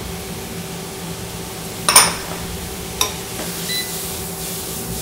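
Frying pan handled on an induction cooktop: a sharp metallic clank about two seconds in and a lighter knock a second later as the pan is lifted and tossed, over a steady hum.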